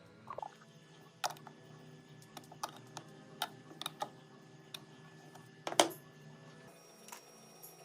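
Irregular sharp clicks and ticks over a faint steady hum, with one louder click a little before the six-second mark.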